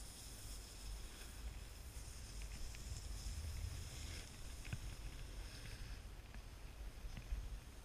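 Snowboard sliding and carving over groomed snow: a steady scraping hiss, with low wind rumble on the microphone and a few faint clicks.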